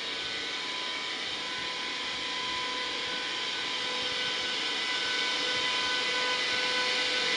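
DB Class 101 electric locomotive approaching slowly with its Intercity train: a steady hiss with a steady electric whine that grows louder as it draws near.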